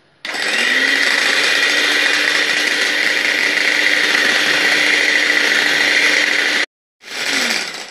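Electric hand mixer running, its twin beaters whisking cream and condensed milk in a glass bowl: a steady motor whine. It cuts out suddenly near the end, comes back briefly and its pitch falls as it winds down.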